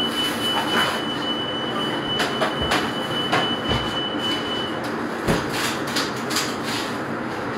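Busy bakery shop-floor background: a steady high-pitched whine that stops about five seconds in, over a low steady hum and scattered clicks and clatter.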